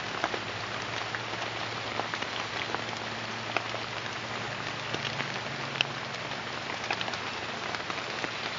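Steady rainforest background hiss with many scattered small ticks and patters, over a faint low steady hum.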